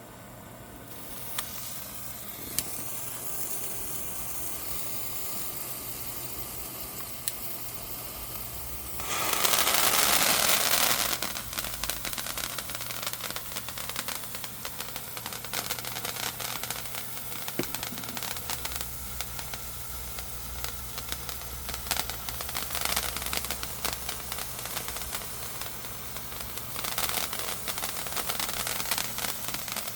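A firework burning on the ground: a steady hiss, then a much louder rushing spray for about two seconds, then dense crackling of many small pops that swells louder twice near the end.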